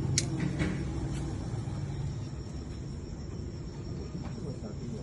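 Steady low rumble, with faint steady high tones above it and a couple of short sharp sounds in the first second.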